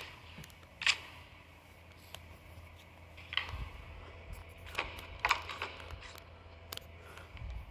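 Steady low hum of a room fan, with a handful of sharp clicks and taps spread through it.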